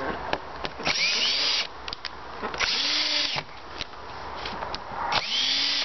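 Cordless drill driving screws in a timber rail that clamps polytunnel polythene, run briefly three times, each run spinning up with a rising whine. This is the screw work of tensioning the cover, where the rail is released and re-fixed as the polythene is pulled tighter.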